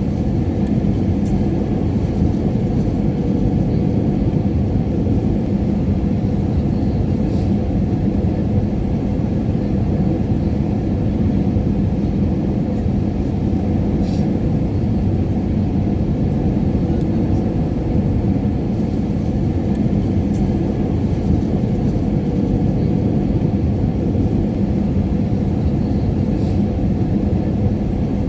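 Airliner cabin noise in flight: a steady low rumble of engines and rushing air with a faint hum, unchanging.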